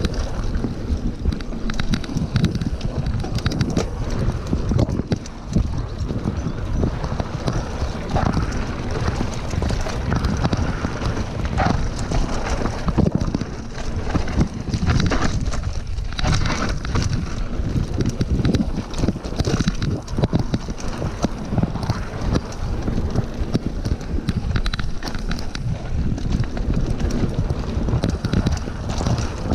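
Wind buffeting the action camera's microphone during a fast mountain-bike descent, over the steady rolling of knobby tyres on packed dirt. Frequent short rattles and knocks come from the bike jolting over bumps.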